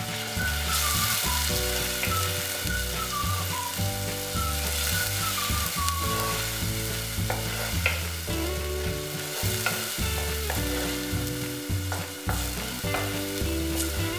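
Spice paste of chilli, coriander and turmeric powders frying in coconut oil in a clay pot, sizzling steadily while a wooden spoon stirs and scrapes through it. The paste is being sautéed until its raw smell cooks off. Soft background music plays underneath.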